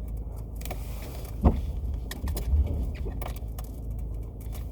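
Inside a car with the engine running: a steady low rumble with the windshield wipers going and a few sharp knocks, the loudest about a second and a half in.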